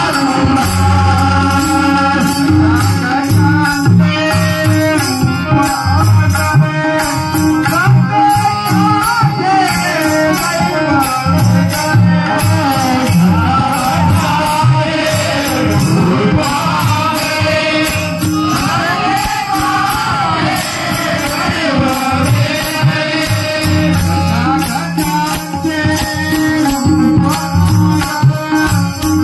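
Marathi devotional bhajan: a male voice sings a bending melody over electronic keyboard, with tabla strokes and jingling hand percussion keeping a steady beat.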